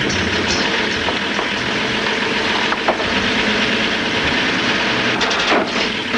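A motor vehicle's engine running steadily over a dense hiss of street noise, with a few short clatters near the end.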